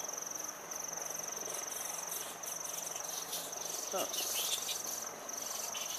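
Steady high-pitched insect trill, finely pulsed, breaking off briefly a few times. A single short falling call sounds about four seconds in.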